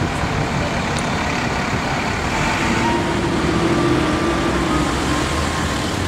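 Steady road traffic on a busy city street: cars and taxis driving past, with one passing vehicle's engine hum standing out in the middle.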